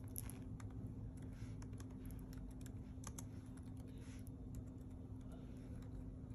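Typing on an HP laptop keyboard: faint, irregular key clicks over a low steady hum.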